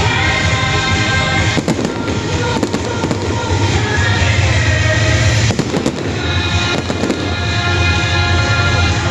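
Fireworks display: repeated bangs and crackles over loud music with held tones.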